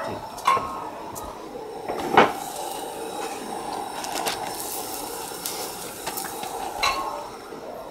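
Cookware and utensils knocking and clattering a few times around a griddle, the loudest knock about two seconds in, over a steady background hiss.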